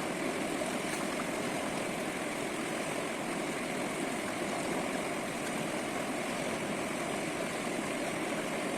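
Steady rush of flowing river water, an even hiss with no changes.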